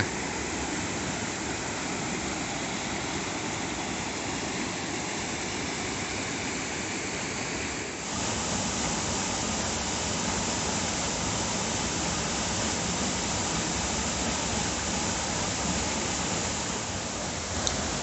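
Waterfall: a steady rush of falling water, stepping slightly louder about eight seconds in.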